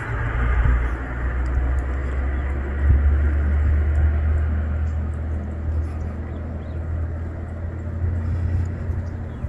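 Low, steady outdoor rumble with no clear events in it, slowly swelling and easing.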